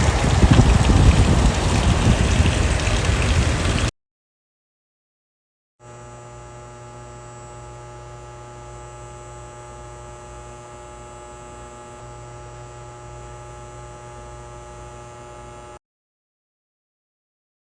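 A loud, steady rain-like hiss that cuts off abruptly about four seconds in. After about two seconds of silence, a quieter steady electrical hum with many overtones runs for about ten seconds and cuts off just as abruptly.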